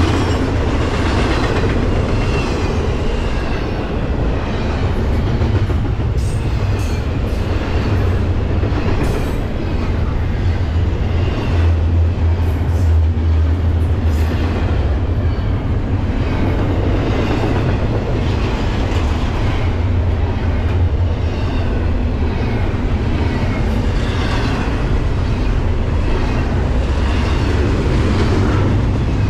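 Freight train rolling past close by: a steady low rumble with a continuous clickety-clack of wheels over rail joints.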